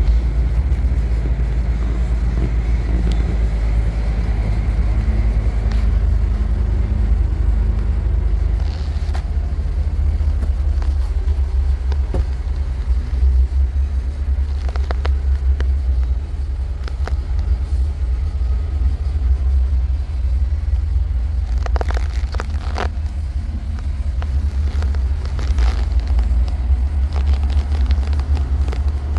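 Cummins ISC 8.3-litre inline-six diesel of a 2008 Pierce Saber fire truck idling steadily, a low, even rumble. A few light clicks and knocks come over it through the middle and near the end.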